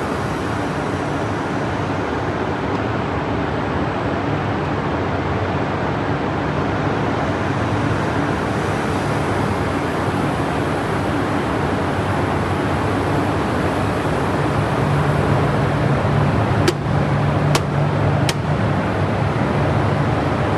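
Fruit processing line conveyor machinery running steadily, with a low hum that grows louder about two-thirds of the way through. Three sharp clicks come near the end, a little under a second apart.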